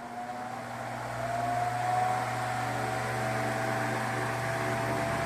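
Ventisol VOP 60 MX G3 60 cm wall fan switched straight to maximum speed. A steady motor hum and a rush of air grow louder over the first two seconds, with a tone rising slightly in pitch as the blades come up to full speed, then hold steady. The fan is a noisy one.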